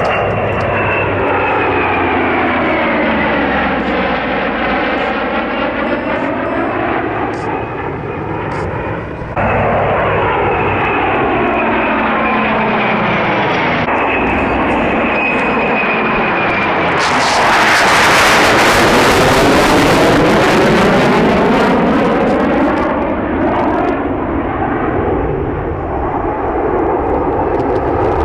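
Jet engines of two Navy F-18s flying in formation with an F4U Corsair, passing overhead. A steady roar carries a slowly falling whine and sweeping tones from the pass, and swells to its loudest about two-thirds of the way through as the formation comes over.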